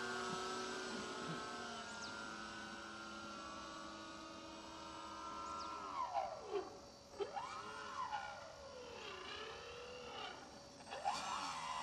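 A radio-controlled foam model floatplane's electric motor and propeller, whining steadily and fading as the plane flies away. About halfway through, the whine starts rising and falling in pitch again and again as the throttle is worked on the landing approach.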